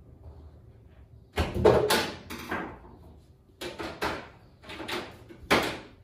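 Hard parts clattering and scraping in about five short bursts, the loudest about one and a half seconds in.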